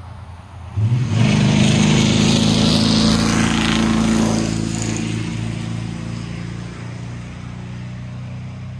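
Chevrolet Silverado's 4.8-litre V8 running through long-tube headers and true dual pipes with no cats and no mufflers, driving past under throttle. The exhaust note jumps up about a second in, stays loud for a few seconds as the truck passes, then fades slowly as it drives off.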